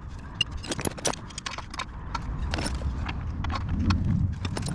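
Irregular metallic clicks and knocks of tools and parts being handled while a gearbox is fitted to an engine, with a low rumble around four seconds in.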